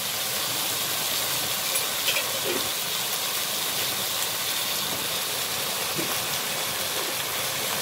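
Raw chicken pieces sizzling steadily in hot oil in a clay pot.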